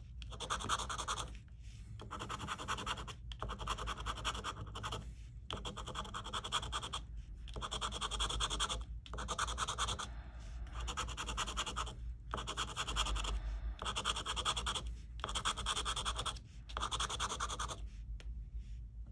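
A coin scratching the latex coating off a scratch-off lottery ticket: rapid rubbing in bursts of a second or two with short pauses between, stopping near the end.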